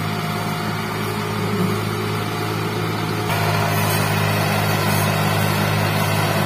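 Farm tractor engine running steadily, growing louder about three seconds in as the tractor pulls away across the field.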